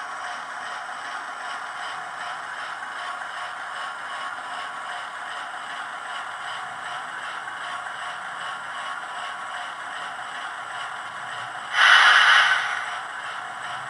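Hornby class 08 model diesel shunter with a TTS sound decoder running, its small speaker giving a steady mechanical running sound. A single loud burst of noise, under a second long, comes near the end.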